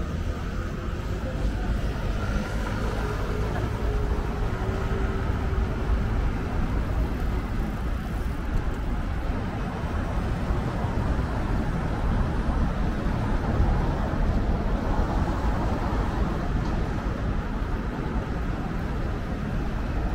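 City street ambience: a steady low rumble of passing road traffic.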